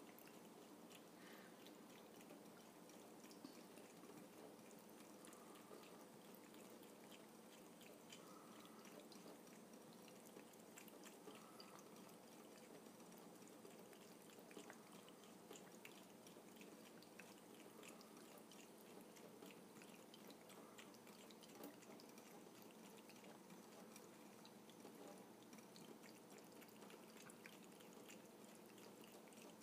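Faint trickle of a thin stream of water running from a kitchen faucet, with small irregular drip-like ticks as a cat laps from the stream.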